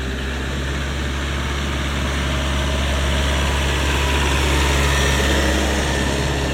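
Small tractor's engine running as it drives past close by, a steady low engine note that grows louder to a peak about five seconds in and then eases slightly.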